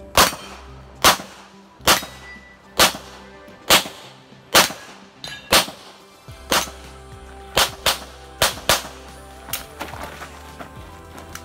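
Handgun fired shot after shot: about a dozen sharp reports, evenly spaced about a second apart at first, then quicker and closer together past the middle, fainter near the end. Background music plays underneath.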